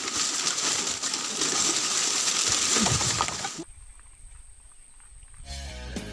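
Dense high hiss of outdoor field noise in overgrown oil palm undergrowth, with a few short rising animal-like calls around three seconds in, cutting off abruptly. A quieter stretch with a thin steady high whine follows, then intro music with guitar begins near the end.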